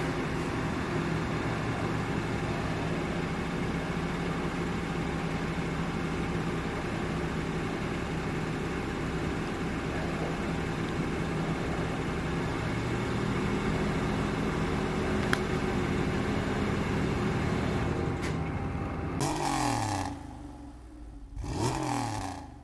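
2021 Porsche Cayenne's turbocharged V6 running at a steady, raised cold-start idle. The idle settles a little lower about halfway through. Near the end the pitch falls away twice before the sound dies out.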